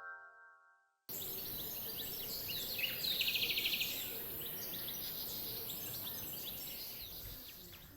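Outdoor ambience with small birds chirping over a steady background hiss, including a rapid trill about three seconds in. It starts suddenly about a second in, after the last notes of a chime jingle fade out.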